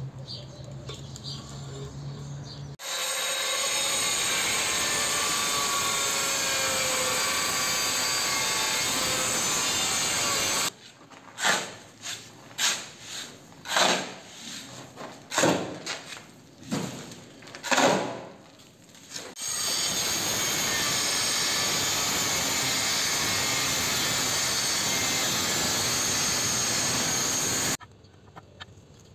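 Angle grinder cutting ceramic tile, a steady harsh hiss for several seconds at a time, twice. Between the cuts, a shovel scrapes and scoops into a sand-and-cement mix, about a dozen separate scrapes over some nine seconds.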